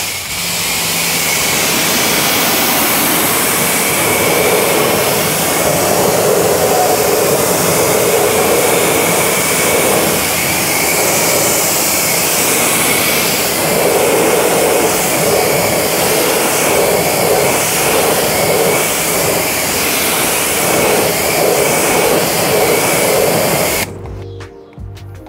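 Pressure washer jet rinsing dirt off a wheel: a loud, steady spray hiss that cuts off suddenly about a second before the end.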